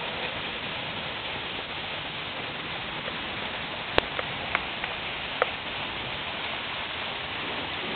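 Steady rain falling, an even hiss throughout. A few sharp ticks stand out between about four and five and a half seconds in, the first the loudest.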